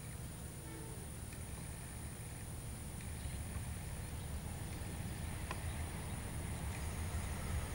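Diesel locomotive approaching while hauling passenger coaches: a low engine rumble that grows steadily louder.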